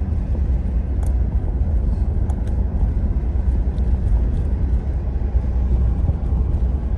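Pickup truck driving: a steady low rumble of engine and road noise.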